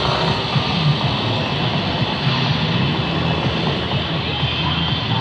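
Many motorcycle engines running together as a slow column of motorbikes rolls up, a steady low drone with no single bike standing out.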